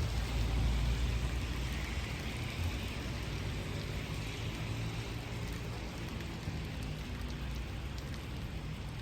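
Rain falling steadily, with a low rumble in the first few seconds that fades away.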